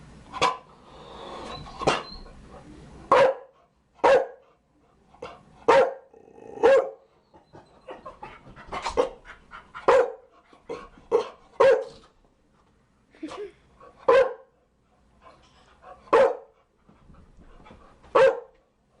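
Chow Chow barking: short, sharp single barks at irregular intervals, mostly a second or two apart, with a few coming in quick runs of two or three.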